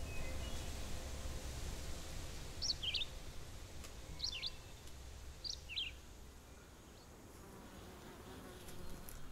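Forest ambience: an insect buzzing, easing off about two-thirds of the way through. A bird gives three short chirps about a second and a half apart, each a quick drop in pitch.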